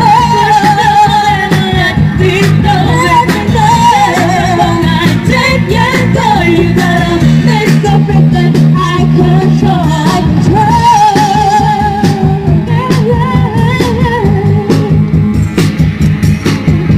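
A band playing a pop-rock song: a wavering sung melody over steady bass notes and a drum beat.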